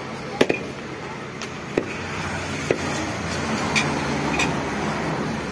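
A heavy knife chopping through raw pork onto a wooden log block: about six sharp chops at irregular intervals of roughly a second, with a quick double hit early on.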